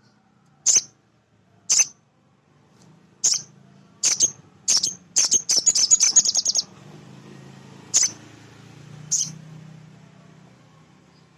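Male sogon (sogok ontong, a spiderhunter) calling in short, sharp, high chirps, several single calls spaced about a second apart with a fast rattling run of calls in the middle. A faint low hum lies underneath.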